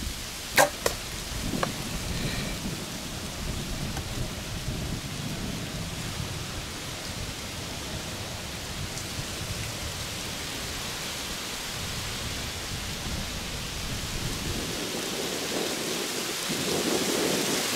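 A bow shot: one sharp, loud snap about half a second in, followed by a couple of smaller clicks. After that, a steady rushing noise with a low rumble, like wind on the microphone, that grows a little louder near the end.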